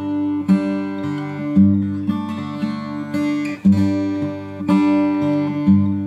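1965 Guild D50 steel-string dreadnought acoustic guitar played: chords picked and strummed, with a new stroke about every half second to second and the notes ringing between. Recorded through a Sony A6400 camera rather than a studio mic.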